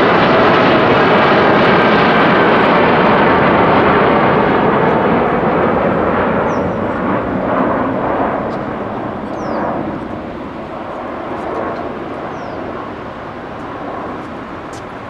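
Twin GE GEnx-1B turbofans of a Boeing 787-8 at takeoff thrust as the airliner climbs away: a loud jet roar with a faint whine sliding slowly down in pitch over the first few seconds. The roar holds for about five seconds, then fades steadily as the aircraft recedes.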